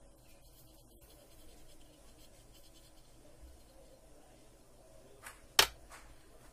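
Faint scratching of a thin metal pick against a feature phone's circuit board, then three sharp clicks close together about five seconds in, the middle one much the loudest.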